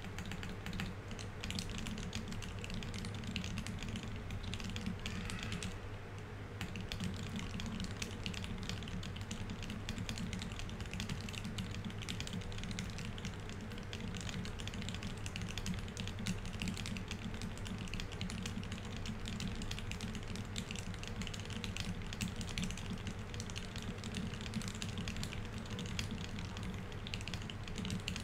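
Fast, continuous typing on a Keycult No. 1/65 mechanical keyboard with Tealios V2 67g linear switches lubed with Krytox 205g0, C3 stabilizers and GMK Oblivion keycaps: a dense, unbroken stream of key clacks at about 147 words per minute.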